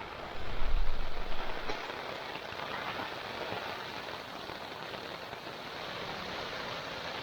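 Heavy rain falling steadily, a dense even hiss, with a deep low rumble in the first second or so.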